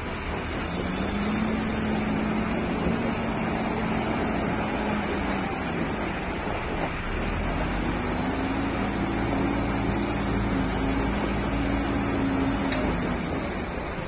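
Bull backhoe loader's diesel engine running under load as the machine drives and lifts a bucket of gravel. Its note rises and holds higher about a second in, and again around eight seconds in.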